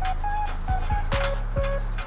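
Background music with a steady beat: bass and drum hits under a short, stepping high melody.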